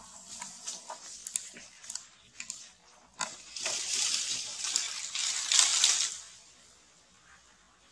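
Dry leaves and grass rustling and crackling, as when handled or trodden: scattered small clicks, then about three seconds of louder rustling that stops about six seconds in.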